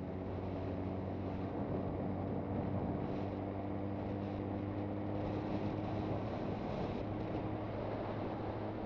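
Suzuki GSX650F's inline-four engine running at a steady speed on the move, with wind noise on the microphone.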